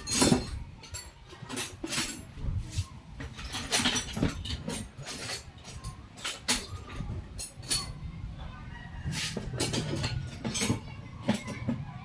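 Irregular sharp clicks and knocks, with metal clinking, over a low background rumble.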